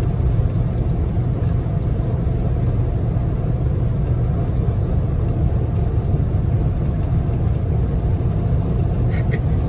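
Steady low rumble of a vehicle running, with a few faint clicks near the end.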